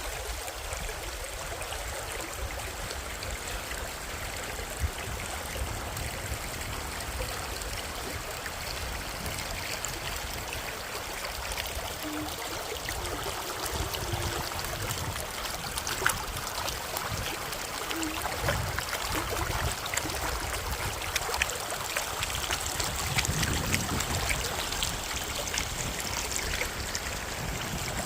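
Mountain valley stream flowing steadily, a continuous rush of running water.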